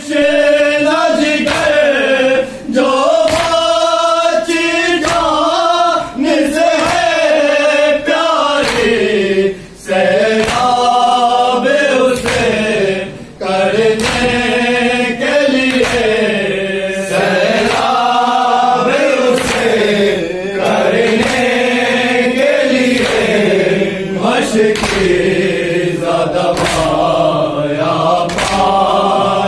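A group of men chanting a nauha, a Muharram mourning lament, in long drawn-out melodic phrases, with sharp slaps in a steady beat that fit matam, hands striking chests in time with the lament.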